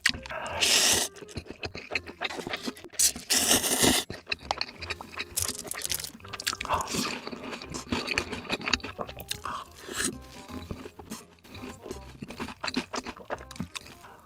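Close-miked eating of sausages: crisp, crunching bites and chewing, with two louder crunching bites about half a second in and around three to four seconds in.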